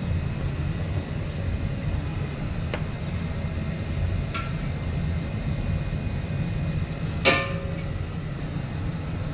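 Steady low rumble of a commercial kitchen's wok range. A couple of light metal clinks, then one loud ringing clang of a metal utensil against a steel pan a little after seven seconds in.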